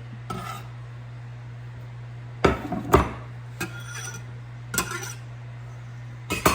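A kitchen utensil clinking against a bowl about five times as minced garlic is added to a marinade, the two loudest knocks in the middle, some with a short ring, over a steady low hum.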